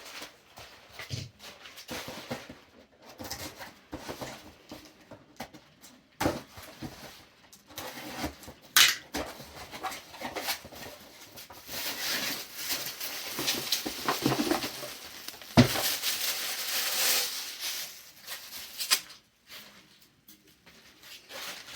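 Scattered clanks and knocks of tools and metal fittings while the old water heater expansion tank is unscrewed and changed out, with a stretch of hissing noise over several seconds in the second half.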